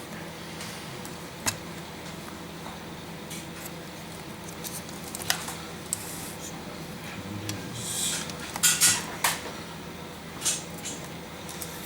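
Small hand tools and metal laptop parts being handled on a workbench during MacBook screen disassembly: scattered light clicks and scrapes, busiest about eight to nine seconds in, over a low steady hum.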